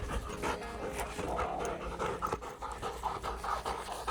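Border collie panting quickly and steadily, about three breaths a second, tired out from running after a ball.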